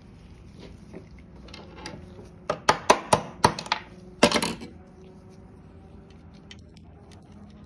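Steel parts of a motorcycle chain press tool clinking and knocking together as they are taken out of the tool case and fitted together: a quick run of sharp metallic clinks in the middle, with quiet handling either side.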